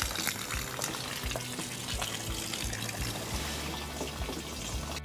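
Water splashing and trickling.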